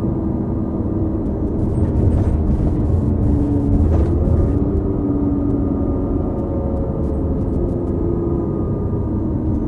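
Diesel transit bus running, a 2018 New Flyer XD40 with a Cummins L9 engine and an Allison B3400xFE transmission: a steady low rumble with a whine that steps up and down in pitch. The uploader puts the odd whine down to the transmission bearings.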